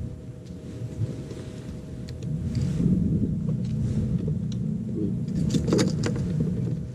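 Wind buffeting the camera microphone on an open boat deck: a low steady rumble that grows louder about two seconds in, over a faint constant hum. A short cluster of sharp clicks comes near the end.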